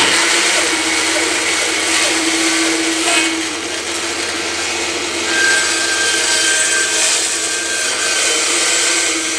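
Lightweight bandsaw running steadily and cutting slowly through a large green oak log blank, with the blank pivoted on a circle-cutting jig to saw it round. A low motor hum lies under the blade noise in the wet wood.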